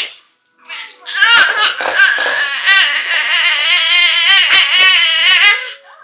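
Baby shouting in long, high-pitched squeals with a wavering pitch, starting about a second in.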